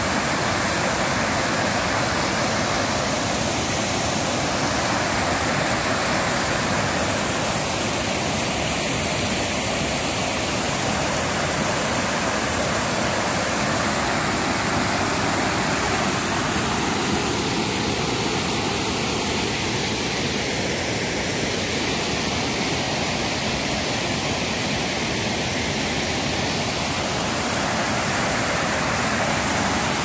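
A small waterfall pouring over a wide rock ledge into a river: a steady, unbroken rush of falling and churning water.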